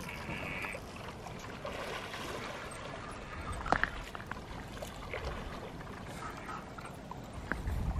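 Soft sloshing and splashing of shallow water as a hooked eel thrashes at the surface while being reeled in to the shore, with a couple of short, sharp clicks, one about halfway through and one near the end.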